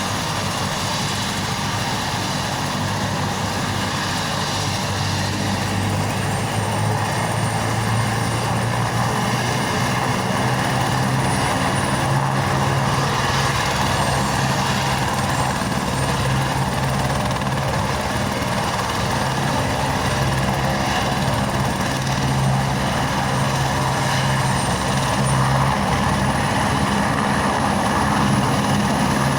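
Helicopter running steadily, a continuous engine and rotor hum with a thin high whine above it that comes in about six seconds in and rises slightly near the end.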